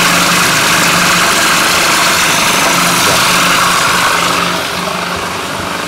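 Food processor motor running steadily as oil is drizzled down its feed tube to emulsify a mustard-and-oil sauce, easing off in level about four and a half seconds in. The mixture is not taking well, which the chef puts down to the small quantity in the bowl.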